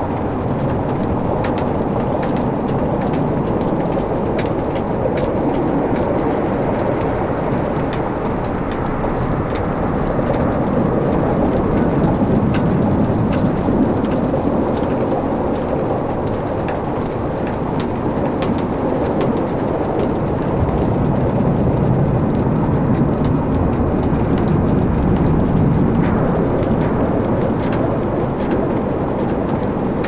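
Wood fire burning in a fireplace: a steady low rush of flames with scattered small crackles and pops from the burning logs.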